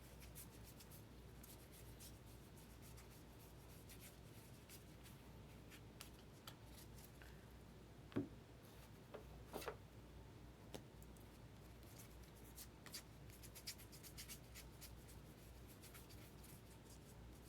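Near silence, broken by faint rubs and soft clicks of baseball trading cards being handled and sorted, with a couple of louder taps about eight and ten seconds in.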